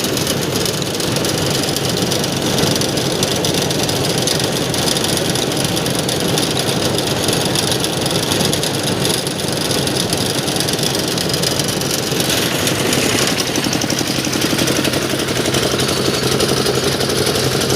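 Engine-driven paddy thresher running, a loud, steady machine din. Its sound changes and sharpens about two-thirds of the way through, with a steady low hum coming in.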